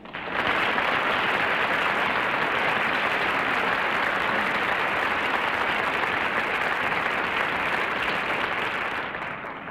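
Studio audience applauding, starting at once and fading out near the end.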